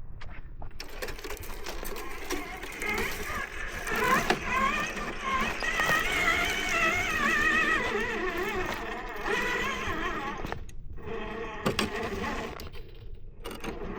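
RC4WD Blazer scale RC crawler's electric motor and gearbox whining as it crawls over rocks, the pitch rising and falling with the throttle, dropping out briefly twice near the end.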